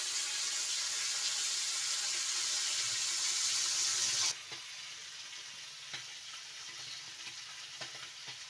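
Small turmeric-coated sea fish sizzling steadily as they shallow-fry in a little hot oil in an aluminium kadai. The sizzle cuts off abruptly about four seconds in, leaving a quieter background with a couple of faint knocks.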